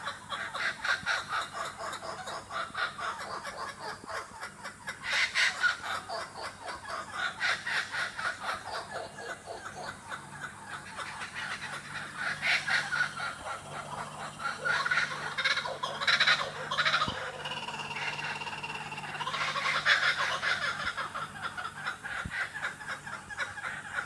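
A group of laughing kookaburras calling together: a continuous rolling chorus of rapid chuckling notes that swells into louder bouts of laughter several times. A brief steady high whistle sounds about two-thirds of the way through.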